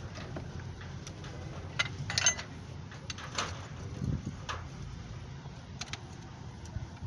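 Scattered sharp metallic clicks and clinks of tools and parts being handled at the engine, the loudest a cluster about two seconds in, with a low thud about four seconds in, over a steady low hum.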